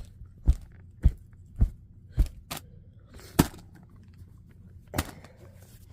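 A series of dull knocks or thumps, about two a second at first, then two more spaced further apart.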